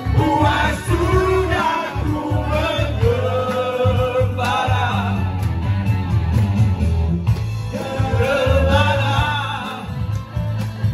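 Men singing into microphones, amplified, with others joining in, over accompanying music with a steady bass beat.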